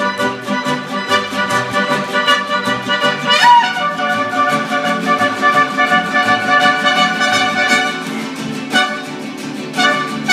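Mariachi band playing: a guitarrón bass and strummed vihuela and guitar keep a steady beat of about four strokes a second, under sustained melody from two trumpets and a violin.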